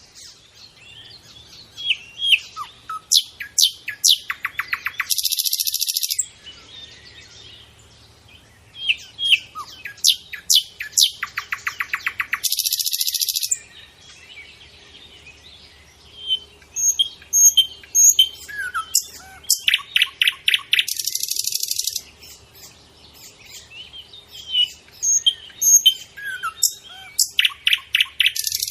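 Nightingale singing in repeated phrases about every seven or eight seconds. Each phrase is a run of varied whistles and fast repeated notes that ends in a harsh, rattling buzz about a second long, with short pauses between phrases.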